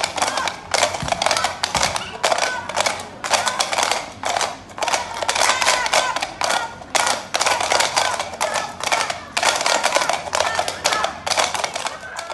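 Coconut-shell stilts (half shells held on strings) clacking on paving blocks under several walkers at once: a dense, irregular clatter of hard knocks.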